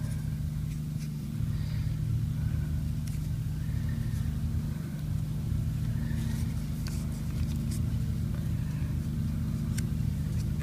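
A motor running steadily with a low, even hum, and a few faint clicks from hands handling a threaded plastic fitting and Teflon tape.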